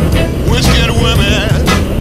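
Music with a steady drum beat, heavy bass and a wavering melodic line.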